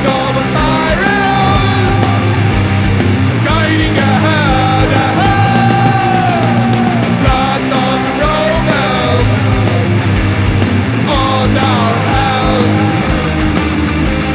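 Doom metal band's demo recording: distorted electric guitars, bass and drums with a steady kick-drum beat, and a high melodic line bending in pitch above them.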